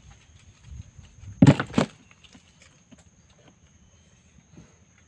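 Two quick, loud impacts about a second and a half in, over a low rumble and a steady high insect drone.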